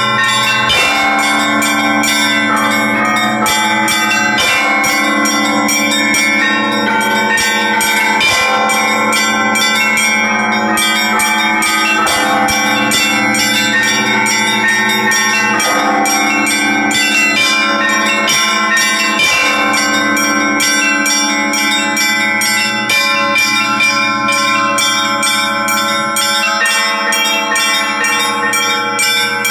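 Russian Orthodox church bells rung by hand by a bell ringer: a continuous peal of several bells, with rapid strikes on the higher bells over deeper ones, their tones overlapping and ringing on.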